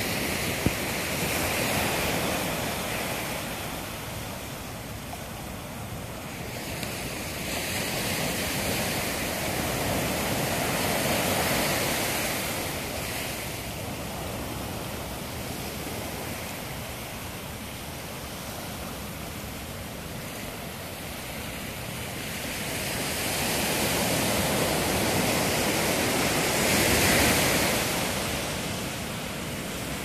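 Ocean surf breaking and washing up a sandy beach, the noise swelling and fading about three times as waves come in.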